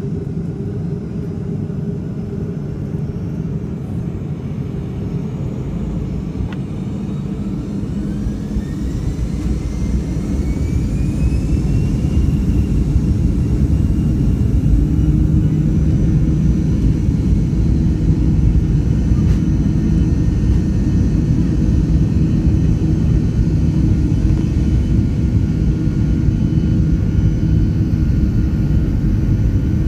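Boeing 737-800's CFM56-7B turbofan engines heard from inside the cabin, spooling up to takeoff power. A whine rises in pitch starting about a fifth of the way in and the sound grows louder, then holds as a steady loud rumble while the jet accelerates down the runway.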